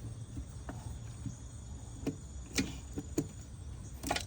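Irregular light clicks and taps from handling and fitting plastic wiring-harness connectors to a car's engine control module, a quick cluster of clicks near the end, over a steady low hum.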